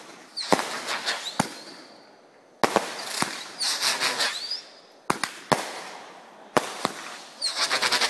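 A "Two Parrots Fighting" consumer firework cake firing: a string of sharp bangs at uneven intervals, some followed by shrill, wavering whistles and dense crackling. The whistles are meant to sound like squabbling parrots.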